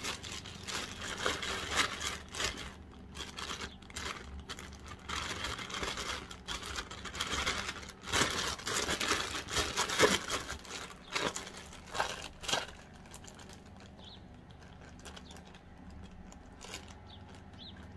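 Thin plastic bag crinkling and rustling in irregular bursts as handfuls of pickled spider plant greens are packed into it. It dies down to a faint background after about twelve and a half seconds.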